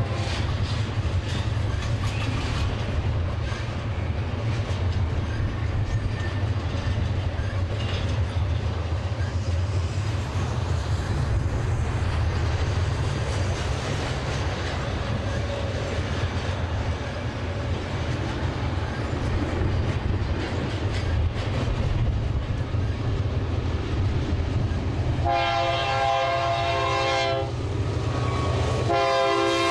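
Freight trains passing close by: a steady low rumble of diesel locomotives and rolling cars. Near the end a locomotive air horn sounds a chord for about two and a half seconds, then starts a second blast just before the end.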